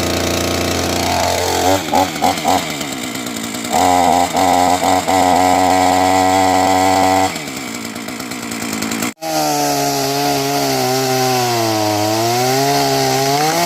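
Small two-stroke petrol chainsaw running on its first start: it idles, is blipped a few times, held at higher revs for a few seconds, and drops back to idle. About nine seconds in the sound breaks off abruptly, then the engine runs on with its pitch sagging and rising again.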